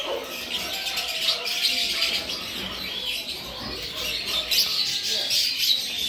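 Many small cage birds chirping and twittering at once, a constant overlapping chatter of short high calls.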